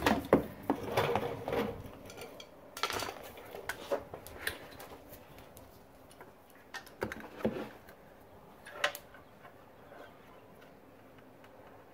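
Light clicks, taps and clatter of hands fitting a new brake pad wear sensor and its plastic cover. The sounds are busiest in the first few seconds, with a few sparse knocks later.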